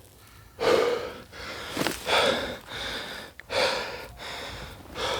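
A man panting hard, a heavy breath every second or so, out of breath from climbing a steep slope.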